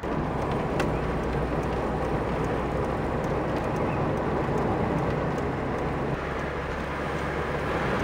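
A car driving on a road, heard from inside the cabin: a steady mix of engine hum and road noise.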